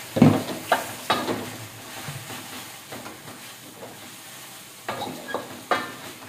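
Water spinach sizzling in a metal wok while a wooden spatula stirs and scrapes it. The spatula knocks against the pan several times in the first second or so and again near the end.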